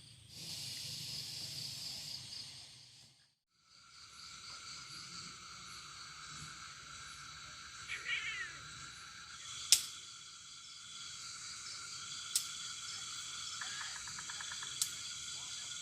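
Night chorus of insects and frogs: steady high-pitched shrilling with repeated pulsed calls, broken by a short gap about three seconds in. Three sharp clicks sound in the second half.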